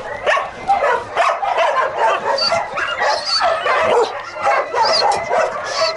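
A pack of shelter dogs barking, yipping and whining all at once in excited greeting. The calls overlap continuously, with a few high-pitched whines breaking through.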